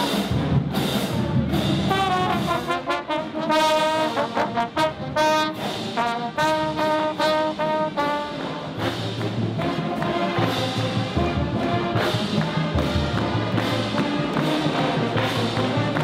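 Marching band playing: a brass section with sousaphones carrying the tune, over a drumline beating steadily with cymbals. Low sousaphone bass notes come in about halfway through.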